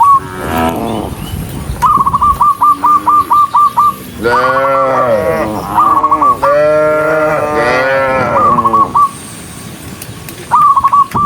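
Cattle mooing in repeated overlapping calls, several animals at once. Runs of quick, high, chirp-like notes at about five a second are mixed in, clearest about two seconds in.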